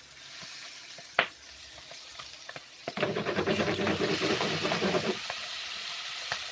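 Floured chicken intestines frying in hot oil in a pan, sizzling with scattered pops. The crackling gets louder and denser about three seconds in.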